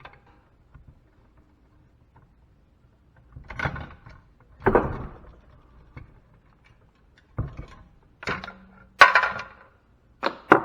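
Metal parts of salvaged scrap equipment clattering and scraping as they are worked apart with hand tools, a flat screwdriver among them, in several separate short bursts, the loudest near the end.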